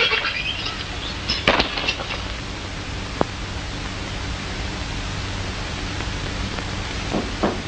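Steady hiss and faint hum of an old film soundtrack, with a few isolated clicks and a few soft knocks near the end.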